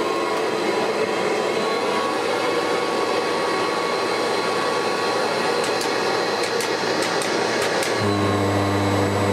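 Kirby Heritage 2 upright vacuum cleaner running steadily just after being switched on, a motor whine over a rushing fan noise. About eight seconds in, a deeper steady hum joins.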